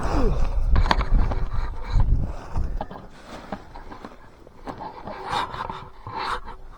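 Wind buffeting the microphone with a low rumble for the first few seconds, then dropping away to quieter, scattered rustling and scraping sounds.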